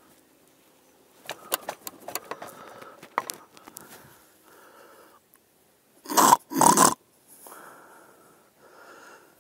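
A person snoring: slow, rasping breaths about a second apart, with two loud snorts about six seconds in. Light crackling and rustling comes through in the first few seconds.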